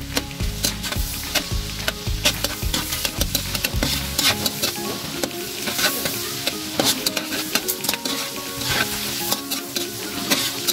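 Sliced red onions sizzling in butter in a large wok, with the metal slotted spatula scraping and clicking against the pan as they are stirred. Background music plays underneath.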